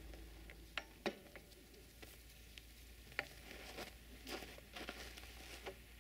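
Faint footsteps crunching in snow, with a few sharp clicks.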